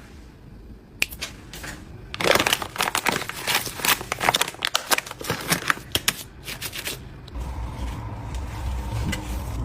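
Quick clicking and rustling from objects being handled, dense for several seconds. A low steady hum comes in near the end.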